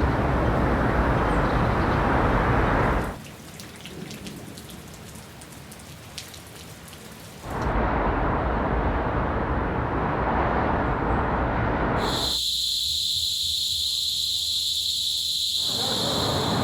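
A run of short outdoor ambience recordings cut together: heavy, steady rain noise, then a quieter stretch of light patter and drips about three seconds in, heavy rain again, and near the end a steady high-pitched buzz.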